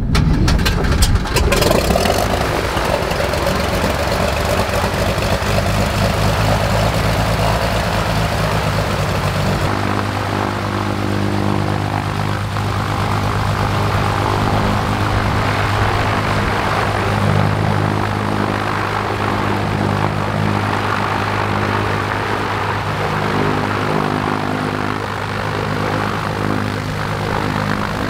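Cessna 185's propeller-driven piston engine catching just after starting and settling into a steady idle. The tone changes about ten seconds in.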